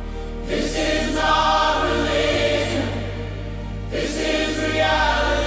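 Gospel choir music: voices singing together over sustained low bass notes, with new phrases coming in about half a second and about four seconds in.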